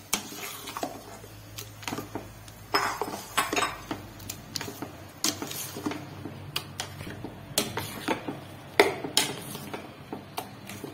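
A metal spoon stirring a thick jackfruit and ground-coconut mixture in a stainless steel pot, clinking and scraping irregularly against the pot's side.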